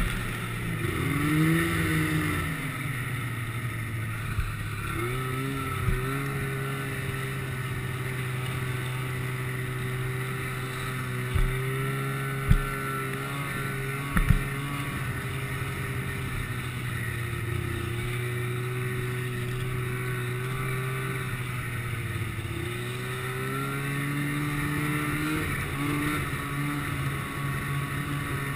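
Snowmobile engine running at a steady cruise, its pitch rising and falling a few times with the throttle. A few short sharp knocks come around the middle.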